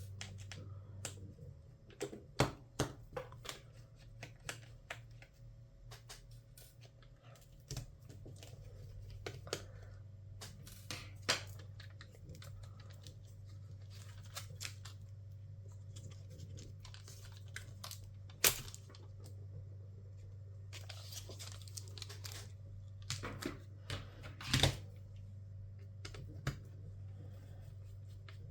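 Irregular clicks, taps and short scrapes of small tools and parts being handled on the inside of an HP EliteBook 1040 G4 laptop, with a louder click about two-thirds of the way in and another near the end, over a steady low hum.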